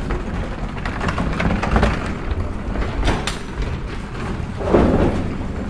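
Knocks and clanks of a metal frame being handled and set against a wooden crate, with a louder clatter near the end.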